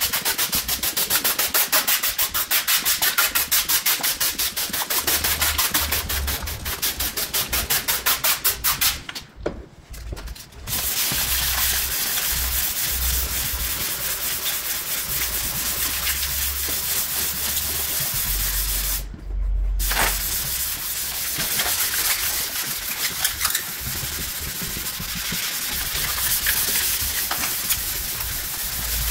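Sandpaper rubbed by hand over the car's painted front fender: quick back-and-forth strokes for the first several seconds, then a brief pause, then a steadier scratchy rasp, sanding down a rough paint edge.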